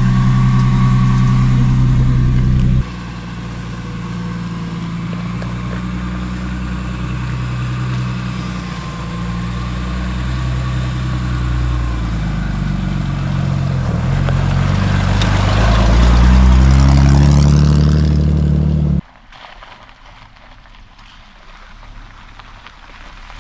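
Jeep engine running while driving, the engine note climbing as it speeds up for a few seconds, then cutting off abruptly to a much quieter, steady drive hum. The sound changes suddenly twice, as at edits.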